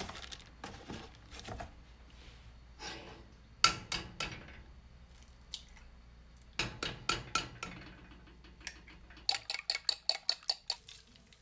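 Eggs being cracked against a square ceramic dish with scattered knocks and clinks, then beaten with a fork. Near the end the fork clicks fast and evenly against the dish, about eight strokes a second.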